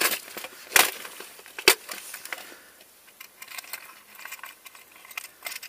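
Fishing tackle being handled, spoon lures among it: two sharp clicks about a second apart, then small scattered ticks and rustles that grow fainter.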